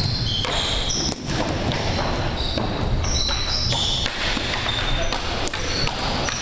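Floor hockey warmup on a hardwood gym floor: a scatter of knocks from hockey sticks and balls hitting the floor and the goal, with short high sneaker squeaks.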